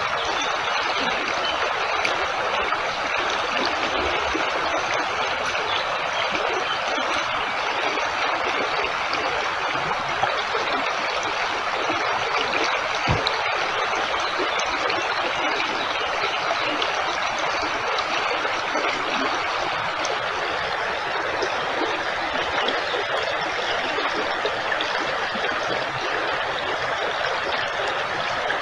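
Running water of a stream, a steady even rush that does not change.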